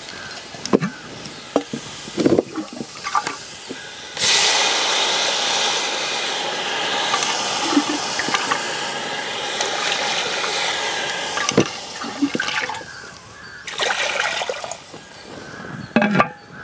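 Water poured into a large metal pot of sautéed vegetables: a steady rushing pour starting about four seconds in and lasting about eight seconds, with a shorter pour later. A few knocks of vessels come before and after.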